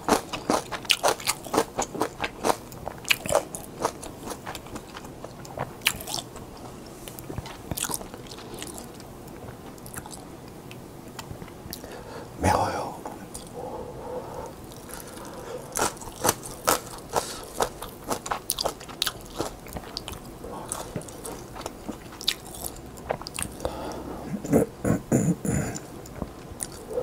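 Close-miked mouth sounds of eating Peyang instant yakisoba noodles: wet chewing and slurping with many quick clicks, louder about twelve seconds in and again near the end.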